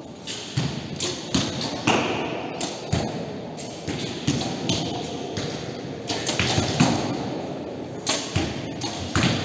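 Recurve and compound bows being shot along a line: more than a dozen sharp snaps and thuds at irregular intervals, as bowstrings are released and arrows strike the target butts, echoing in a large hall.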